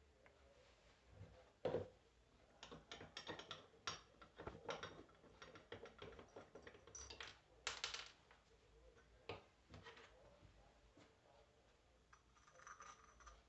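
Faint, irregular clicks, taps and light scrapes of small starter-motor parts being handled on a workbench, with a sharper knock about two seconds in and another near eight seconds.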